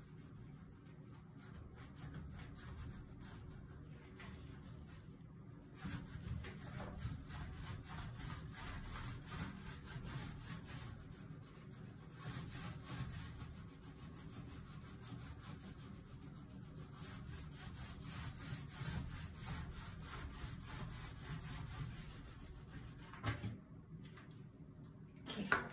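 Small foam paint roller rolled back and forth over ceramic shower tiles, spreading wet paint with a steady rubbing sound. There are a few knocks near the end.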